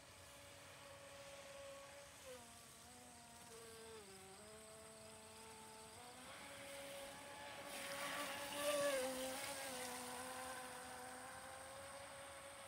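Radio-controlled model speedboat running fast, its motor a high, thin whine that dips in pitch a few seconds in and then rises again. It is loudest about eight to nine seconds in, where a hiss of spray from the hull joins it, and then fades as the boat runs off.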